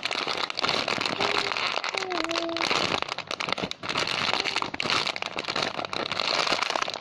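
Plastic packaging being handled, crinkling and crackling continuously.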